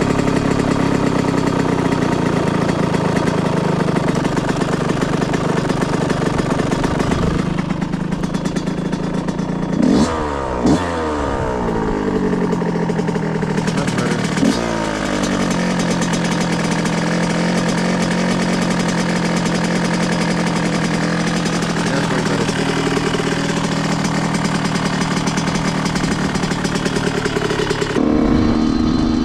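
2005 Yamaha YZ125's single-cylinder two-stroke engine running steadily. About ten seconds in the throttle is blipped twice in quick succession, and again a few seconds later, each time with the revs falling back down. Near the end the engine steps up to a higher, steady speed.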